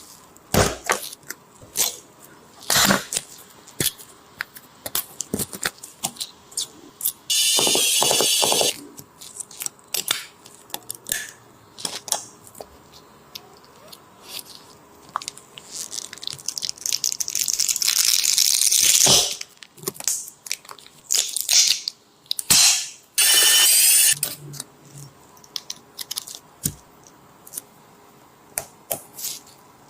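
Small clicks, taps and rattles of tools and phone parts being handled during a phone screen replacement, with three hissing or tearing noises of a second or two each, the middle one swelling over about three seconds.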